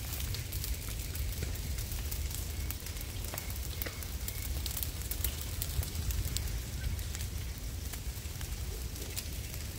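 Brush fire of cut branches and dry palm fronds burning, crackling steadily with many sharp pops over a continuous low rush.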